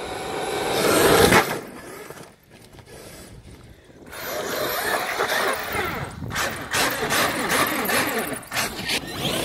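Electric RC cars running, their motors whining and changing pitch as they speed up and slow down. The sound swells to its loudest about a second in, then drops away.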